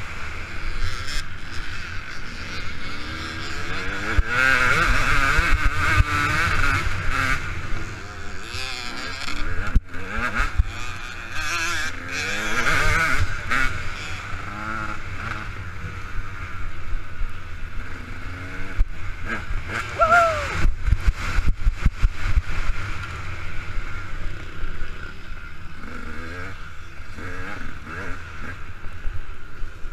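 KTM 200 EXC two-stroke dirt bike engine being ridden hard, its revs rising and falling over and over as the throttle is opened and shut, heard from a helmet-mounted camera with a constant low rumble of wind and jolts under it.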